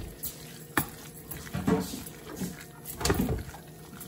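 A utensil stirring a thick, wet chicken, cream cheese and salsa mixture in a glass baking dish: soft squishing, with a couple of sharp clicks of the utensil against the glass.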